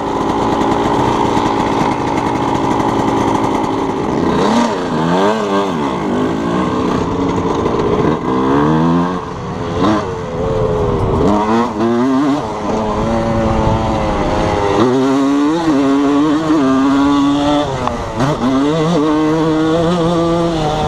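1987 Suzuki RM125's single-cylinder two-stroke engine running, steady for the first few seconds, then revving up and down over and over, its pitch climbing and dropping as the bike is ridden through the gears.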